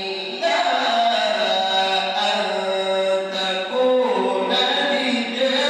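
A man chanting the Quran in a melodic style, holding long notes. A new phrase begins about half a second in.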